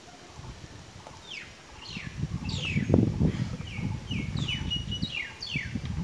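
A bird singing a run of quick, down-slurred whistled notes, about two a second, starting about a second in. Under it is a louder, uneven low rumble on the microphone.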